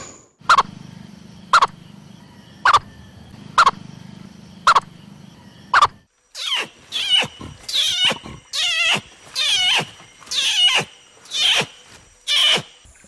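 Purple frog calling: six short, clipped calls about a second apart over a low steady hum. About six seconds in it changes to an orangutan giving a rapid run of high, wavering cries.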